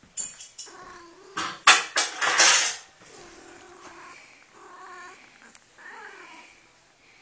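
Female cat in heat yowling in low, drawn-out moans, a few calls in a row in the second half. Before that comes a loud clatter with a few sharp clicks.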